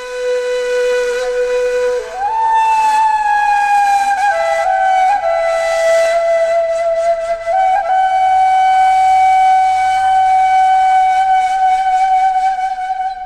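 Solo flute playing a slow melody of long held notes with a breathy tone. About two seconds in it slides up to a higher note, drifts down, and then settles on one long held note for the last five seconds.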